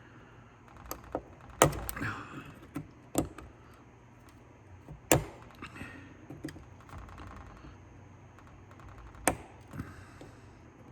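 Small metal clicks and taps of needle-nose pliers working a stubborn C-ring off a door lock cylinder, irregular, with a few sharper clicks among them.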